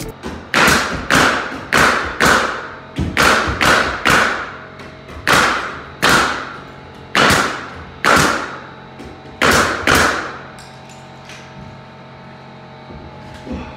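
Pneumatic nail gun driving nails through an attic stair frame into the ceiling framing: about a dozen sharp shots at irregular intervals, each ringing briefly, stopping about ten seconds in.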